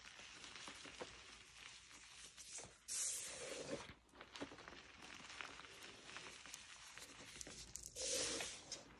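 Hands crushing and sifting crumbly dyed pasted gym chalk: a fine, gritty crackling and crunching of powder and small lumps, with two louder, hissy bursts about three seconds in and near the end.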